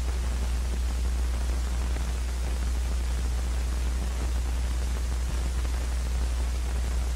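Steady hiss with a low hum underneath, the background noise of an old film soundtrack, with nothing else heard.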